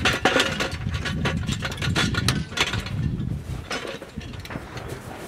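Irregular metal clanks, knocks and rattles of a 120mm mortar being handled and swung back in on its carrier, over a low rumble that fades about four seconds in.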